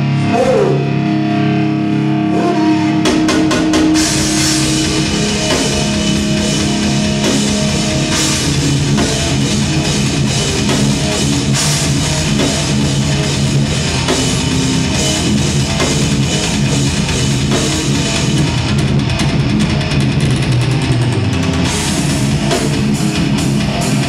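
Heavy metal band playing live during a sound check: electric guitar with held chords at first, then the drum kit comes in about three seconds in with fast, dense drumming under guitar and bass.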